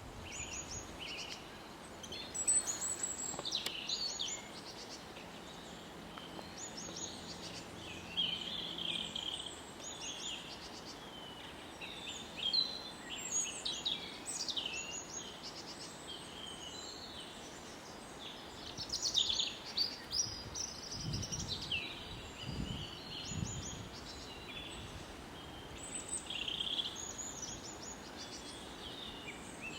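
Several wild songbirds chirping and singing in forest ambience: short high chirps and quick trills, overlapping and coming in clusters throughout, over a steady soft background hiss.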